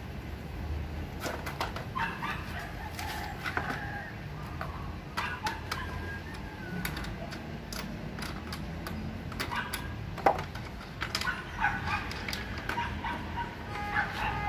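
Scattered sharp plastic clicks and knocks from handling a Stihl MS 170 chainsaw's body and side cover during assembly, the sharpest about ten seconds in. Birds call in the background over a low steady rumble.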